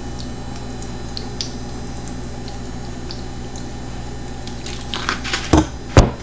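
Soy sauce pouring from a bottle in a thin stream onto meat in a stainless steel pot, over a steady low hum. Near the end come a few sharp knocks as the bottle is set down on the counter.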